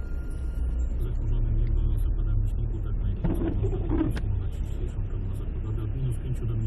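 Steady low rumble of a car driving on a slushy road, heard from inside the cabin. A windscreen wiper sweeps across the glass about three seconds in.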